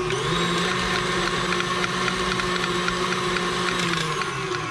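KitchenAid stand mixer running with its wire whisk beating soft cream cheese and butter, with a fast, even ticking over the motor's steady tone. The motor's pitch steps up just after the start as the speed is raised, then winds down and quietens near the end.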